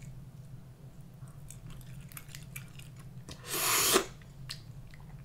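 Close-miked crab eating: faint clicks of a small fork picking Dungeness crab meat from the shell, then, about three and a half seconds in, a loud slurp lasting just under a second as the crab is sucked off the shell into the mouth, cutting off sharply.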